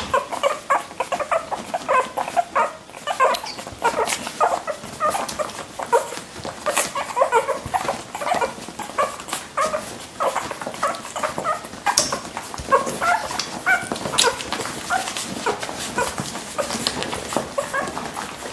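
Lagotto Romagnolo puppies whimpering and yipping in quick, short, high calls, several a second and overlapping, with a few sharp clicks.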